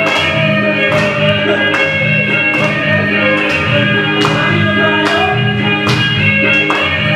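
Nepali deuda folk song music with plucked strings and a steady beat a little under once a second.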